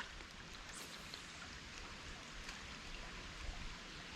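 Creek water running, a faint steady rush.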